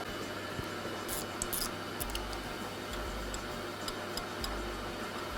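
Stump grinder tooth-sharpening machine running steadily with a low hum, with scattered light metal clicks and taps as the next Red Tooth cutting tooth is worked loose from the grinder.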